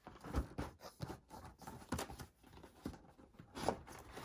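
Hands working the lid of a cardboard box loose and lifting it off: cardboard rubbing and scraping, with a few short taps and knocks.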